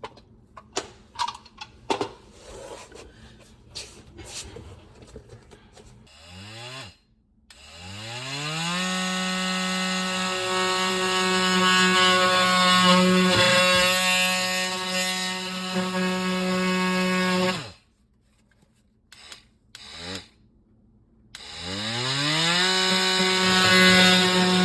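Light clicks and scrapes, then a handheld power tool's motor spins up and runs steadily while cutting through sheetrock. It stops suddenly, gives a short blip, and spins up again near the end.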